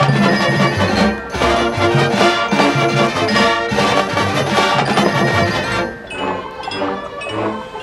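Marching band playing a field show: full brass and drums at loud volume, dropping to a softer, thinner passage about six seconds in.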